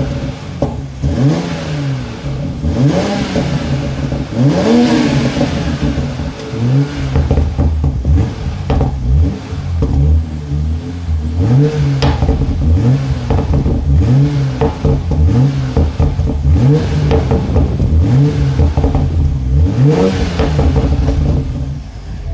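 Toyota A90 Supra's exhaust as the engine is blipped over and over while standing, about a dozen quick revs that rise and fall back toward idle. It is in Sport mode, with a slightly deeper tone.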